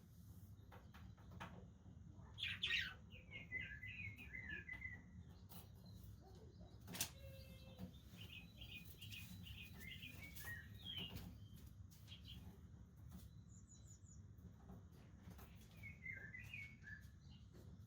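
Budgerigars chirping and warbling in quick, faint bursts, three clusters in all, with scattered short clicks and a steady low rumble underneath.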